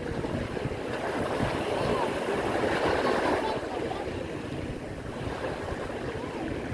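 Small waves washing in over a pebbly shore, with wind buffeting the microphone. The surf swells louder about a second in and eases off a few seconds later.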